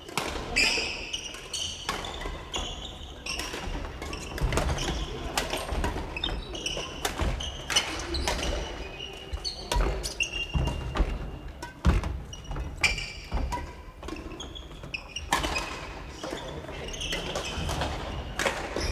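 Badminton rackets striking shuttlecocks on several courts at once: many sharp hits in an irregular succession, ringing in the reverberant hall.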